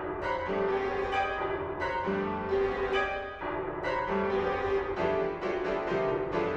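Keyboard music of short struck notes and chords, turning into quick repeated notes, about four a second, from about five seconds in.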